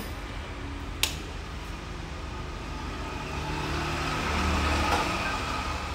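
A low, steady rumble that swells from about three seconds in and eases near the end, with a single sharp click about a second in.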